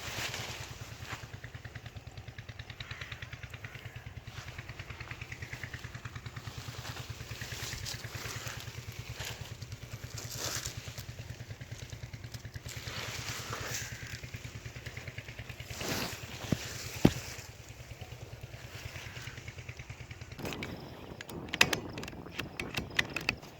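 A small engine running steadily with a fast even pulse. A single sharp crack comes about 17 seconds in, and a quick run of clicks near the end.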